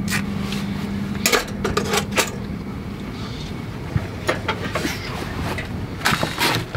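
Scattered light clicks and knocks of camp gear and tableware being handled on a wooden table, with small metal clinks among them and a quicker cluster of knocks near the end. A low steady hum runs underneath and stops about two seconds in.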